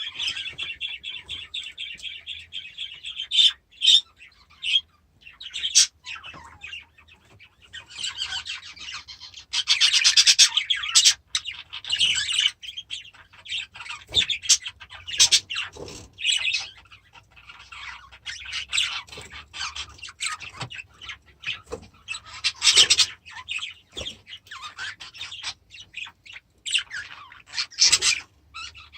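A flock of budgerigars chattering and chirping, with many quick calls overlapping and a long warbling call at the start.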